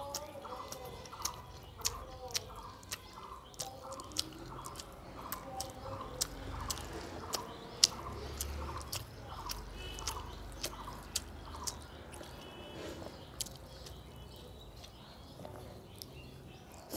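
A person chewing mouthfuls of rice and fish curry close to the microphone, with many short, sharp mouth clicks and smacks coming every fraction of a second.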